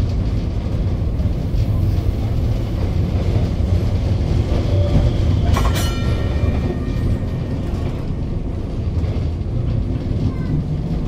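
Historic electric tram running along street track, heard from inside the car: a steady low rumble of wheels on rails. About halfway through, a single sharp metallic clang rings on briefly.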